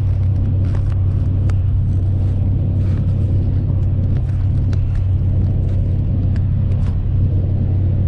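Steady low drone of a car at highway speed heard from inside the cabin, engine and tyre noise on a wet, snowy road. Scattered light clicks and taps over it for the first seven seconds or so.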